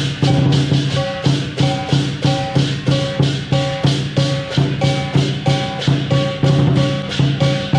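Lion dance percussion ensemble, a big drum with clashing cymbals and gong, beating a steady, driving rhythm of about three to four strikes a second.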